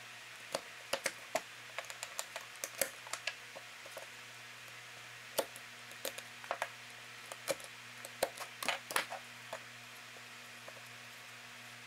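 Utility knife cutting through the holding tabs on a CNC-carved cedar face, with irregular short clicks and snaps as the blade bites and the cut-out pieces break free.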